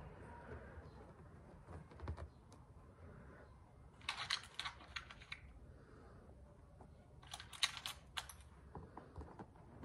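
Small stamp-game tiles clicking and clattering as a hand picks through them in a wooden box and sets them down on the mat. The clicking comes in two short flurries, one about four seconds in and one about seven and a half seconds in.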